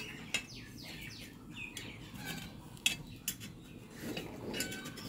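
A few sharp clicks of a wooden stick tapping an iron pitha mould pan. Short falling bird chirps sound about a second in.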